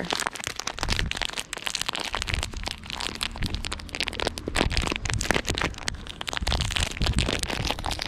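Plastic bags crinkling and crackling as they are handled and pulled open, a dense run of quick irregular clicks.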